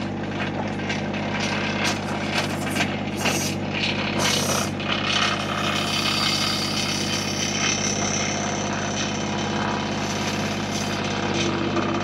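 Massey Ferguson GC-series subcompact tractor's diesel engine running steadily under load while the backhoe works, with scrapes and knocks from the bucket in the first half and a high hydraulic whine in the middle.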